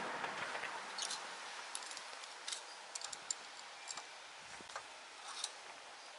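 Scattered light clicks and taps of a hand tool against the outboard motor's midsection housing, irregular and a second or so apart, over a faint hiss.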